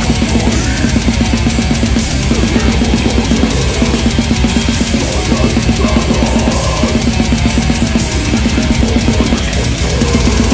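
Heavy metal drumming on a full acoustic kit with Arborea cymbals: a fast, even run of kick-drum strokes under crashing cymbals and snare, played along to a heavy metal backing track.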